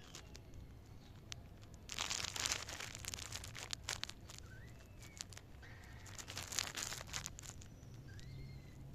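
A cockatiel gives a few short chirps, with two bursts of crinkly rustling and scratching, each about a second and a half long, about two seconds in and again about six seconds in.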